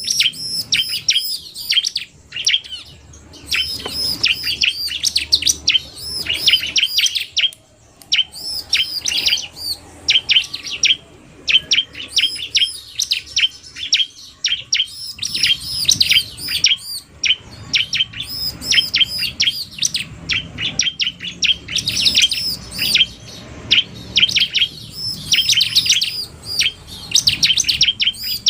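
Bar-winged prinias (ciblek) calling: a male's song mixed with a female's fast calls, dense runs of rapid, sharp, high chirps broken by a few short pauses.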